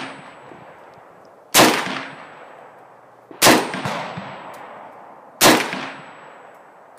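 Three gunshots about two seconds apart, each followed by a long echoing tail; the echo of a shot fired just before is still dying away as it begins.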